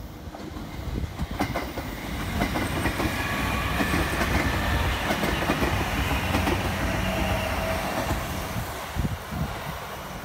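Electric commuter train passing close by: wheels clacking over the rail joints over a rumble, with a high whine. The sound builds, is loudest in the middle as the train goes past, and fades as it moves away.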